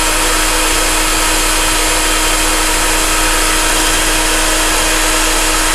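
Electric hand mixer running steadily on speed 2, its beaters whisking eggs in a glass bowl to beat them until they double in volume.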